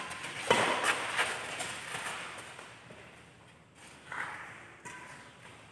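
Badminton rally: a quick run of sharp racket strikes on the shuttlecock about a second in, and more strikes about four and five seconds in, with players' footsteps scuffing on a dirt court. The strikes echo off the hall's metal-sheet walls.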